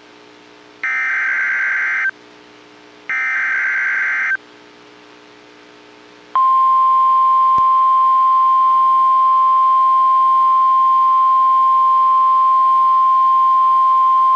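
Emergency Alert System SAME header: two harsh, buzzy data bursts of about a second each, a second apart, marking the start of an alert. About six seconds in, a single steady, piercing NOAA Weather Radio 1050 Hz alert tone begins and holds.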